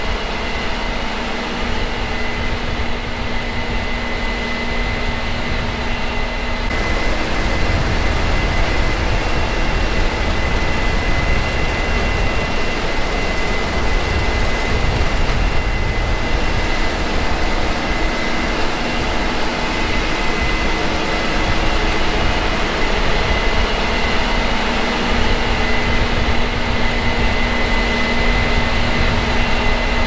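Harvest machinery running steadily, a dense engine noise with a constant high whine, changing in character about seven seconds in.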